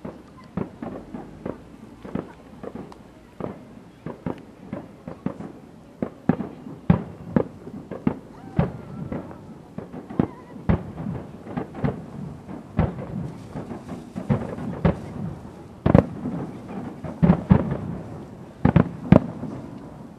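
Aerial firework shells bursting in a long rapid series of bangs and smaller cracks, sparser at first and coming thicker and louder from about six seconds in.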